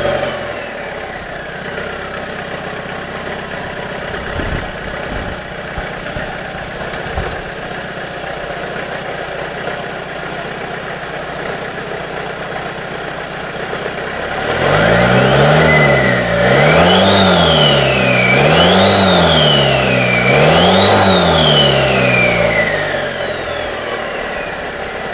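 Rebuilt Toyota Hilux 2.8 turbo diesel engine idling steadily, then revved three times in a row from about fifteen seconds in, each rev rising and falling with a high whine that follows it, before it settles back to idle near the end.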